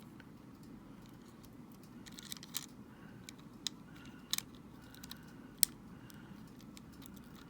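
Small plastic parts of a Nintendo Switch Joy-Con being handled and fitted back together: scattered light clicks and taps, the sharpest a little past halfway, over a faint steady hum.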